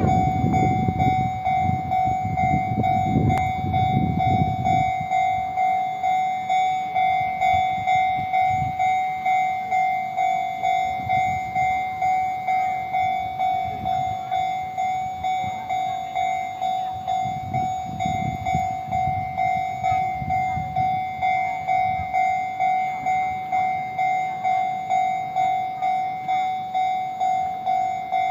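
Railroad level-crossing warning bell ringing, a ringing electronic tone repeated at an even pace, sounding while the crossing is closed for an approaching train. A low rumble sits under it in the first few seconds and again briefly later.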